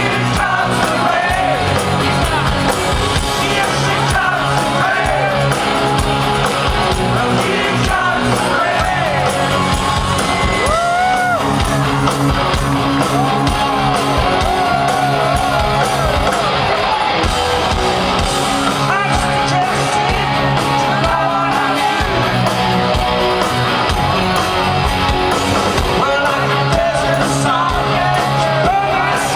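Live rock band playing loud: electric guitar and bass with a male lead singer's voice over them, heard from the audience in a hall.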